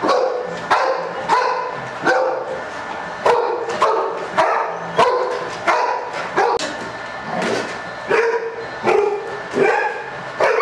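Golden retriever barking over and over, about one and a half barks a second, in its own version of a bark-and-hold.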